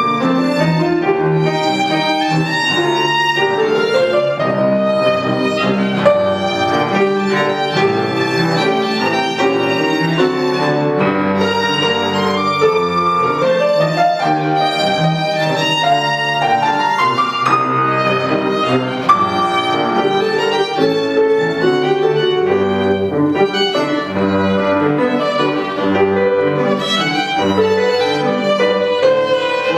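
Violin, cello and piano trio playing a tango, the violin carrying the melody with two long rising runs over the cello and piano accompaniment.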